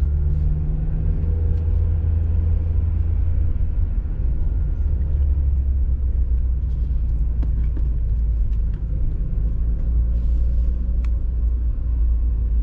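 Steady low rumble of a Nissan Cube being driven, engine and road noise, with a few faint clicks.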